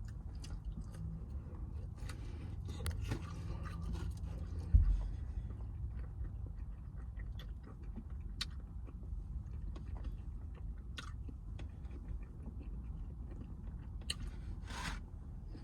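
Close-miked mukbang eating: a person chewing and biting into food, with small wet clicks and crackles scattered throughout. A steady low hum runs underneath, and there is a single sharp thump about five seconds in.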